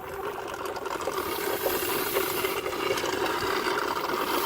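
Used engine oil being drawn out of a standby generator's crankcase through the suction tube of a Mityvac MV7201 Fluid Evacuator Plus vacuum extractor, a steady liquid rush through the tube with air starting to get pulled in along with the oil. A steady engine drone sits underneath, growing slightly louder.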